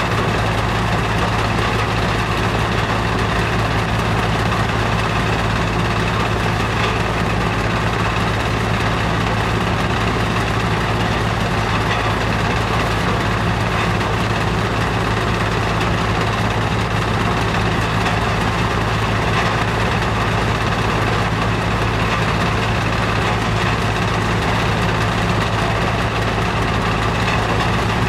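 Sand wash plant machinery running steadily: an unchanging mechanical hum with a strong low drone.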